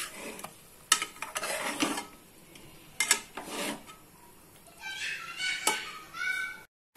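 Steel ladle stirring cooked bitter gourd pieces in a metal pot, with a few separate clinks and scrapes of metal on metal. Near the end comes a short high-pitched sound that rises in pitch.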